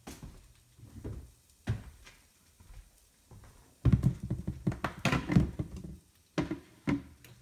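Scattered knocks and thumps, then a louder run of bumping and rubbing handling noise from about four to six seconds in, followed by two more knocks near the end.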